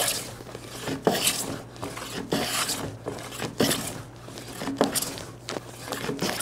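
A No. 5 bench plane taking final flattening strokes across a hardwood board's face: six short shearing hisses, a little over a second apart.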